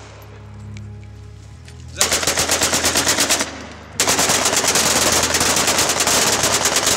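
Kalashnikov-type assault rifles fired on full automatic into the air. A burst of about a second and a half starts two seconds in; after a short pause comes a longer run of continuous rapid fire, about ten shots a second, lasting some three seconds.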